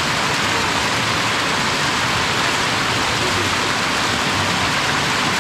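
Hot spring creek water cascading nearby: a steady, even rush of falling water.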